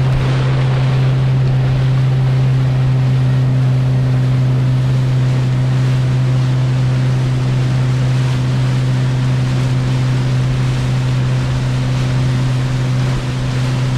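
Motorboat's engine running steadily under way, a constant hum, with water rushing along the hull and wind on the microphone.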